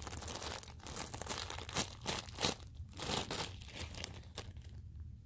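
Clear plastic wrapping around a homemade paper squishy crinkling in irregular bursts as hands squeeze and handle it, dying down near the end.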